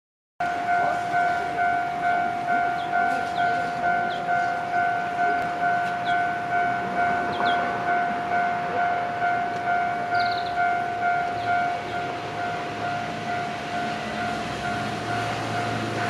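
Japanese railway level-crossing alarm ringing its repeating electronic ding, about two strikes a second, warning that a train is approaching. A low rumble builds underneath in the last few seconds.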